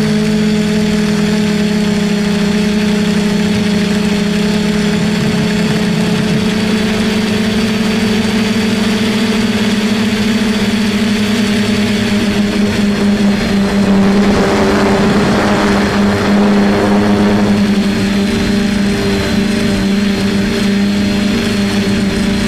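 DJI F450 quadcopter's four brushless motors and propellers humming steadily in flight, heard close up from a camera mounted on the frame, the pitch shifting a little. A rush of noise swells for a few seconds past the middle.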